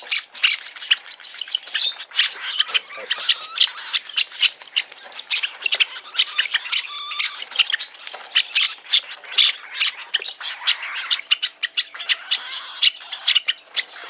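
Young lutino cockatiel making rapid, harsh begging calls, many a second, as it is hand-fed from a feeding stick.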